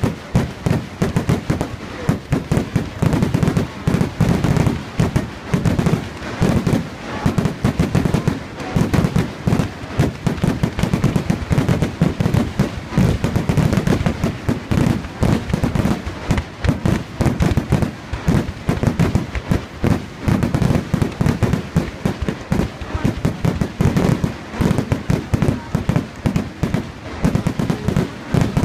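Fireworks display: aerial shells bursting in a rapid, unbroken barrage of bangs and crackle.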